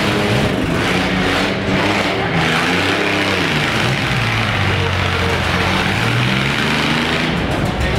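Demolition-derby mini trucks' engines revving hard at full throttle, pitch rising and falling, over a dense, steady wash of engine noise as the trucks spin their wheels in the mud.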